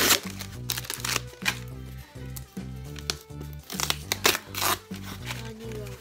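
Background music with a steady repeating bass line, over several short rips and crinkles of paper wrapping and tape being torn off a foam shipping box.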